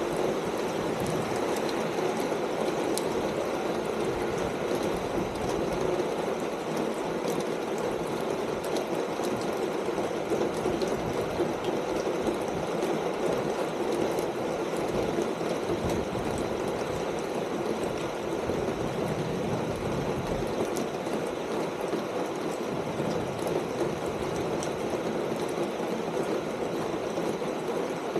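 Steady rain falling on a corrugated metal roof: an even rush of noise with faint ticks from single drops.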